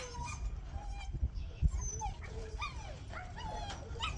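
A dog whining and yipping in short, bending high cries, over a steady low rumble of wind on the microphone, with one brief low thump about one and a half seconds in.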